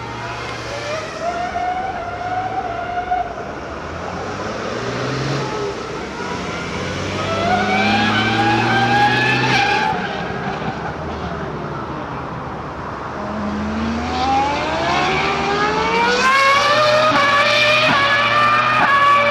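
Ferrari Formula One car's V10 engine at high revs, its high-pitched note climbing, falling away and climbing again as the car accelerates and slows around the circuit. The pitch sinks lowest about two-thirds of the way through, then rises to its loudest near the end.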